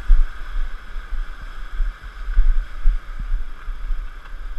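River rapids rushing as a steady hiss, under irregular low thumps and rumble on the microphone from the camera being carried over rock.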